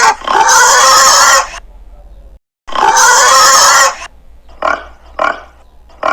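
Young farm animals calling: two long, loud calls, then a run of four short calls about half a second apart.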